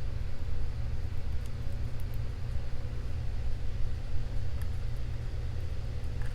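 Steady low hum of background machinery, with a few faint light ticks over it.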